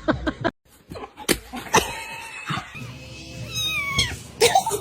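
A domestic cat meowing a few times, with music in the background.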